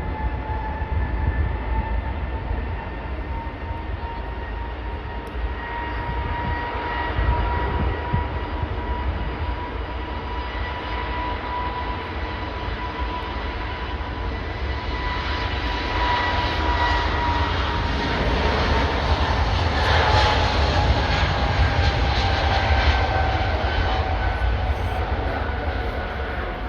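Jet airliner's engines passing by: a high engine whine that holds steady, then falls in pitch as it goes past, over a steady low rumble. The noise swells to its loudest about two-thirds of the way through.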